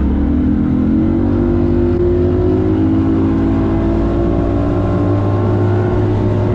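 A bass boat's outboard motor accelerating, its pitch climbing over the first two or three seconds as the boat gains speed, then running loud and steady at high speed.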